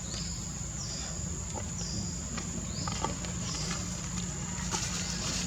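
Baby macaque crying: a run of short, high-pitched squealing calls, about one a second, over a steady high-pitched drone.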